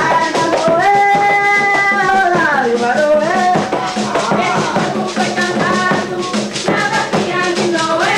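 Coco music: a voice sings long held notes, one sliding down a few seconds in, over a steady shaker rhythm.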